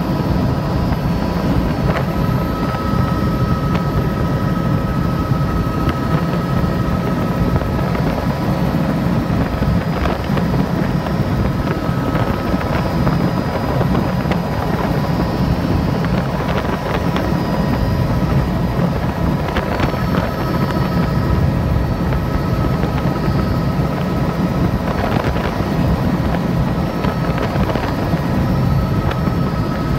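Helicopter in flight heard from inside the cabin: a steady, loud drone of rotor and engine with a steady high whine over it.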